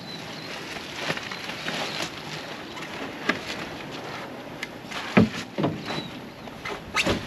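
Scrap wooden boards being shifted by hand in a dumpster, knocking against each other and the bin: a few sharp knocks, the loudest about five seconds in, over a steady hiss.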